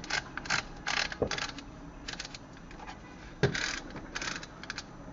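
Aluminium zoomable LED floodlight's zoom head being worked by hand: a run of short scraping, ratcheting clicks with a few sharper knocks.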